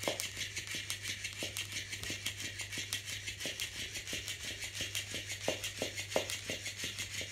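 FlippetyFish electric flopping fish cat toy running: its small motor makes a steady, fast rattling buzz as the fish flexes. The fish's body knocks softly on the wooden floor several times, the loudest knocks coming about five and a half to six seconds in.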